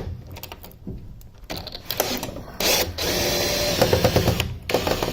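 Power drill running on a stubborn screw: a short burst, then a steadier run of about a second and a half, with knocks and clatter around it.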